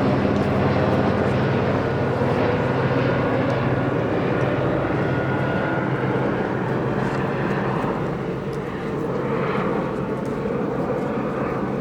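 Steady engine drone with a low hum that holds the same pitch throughout.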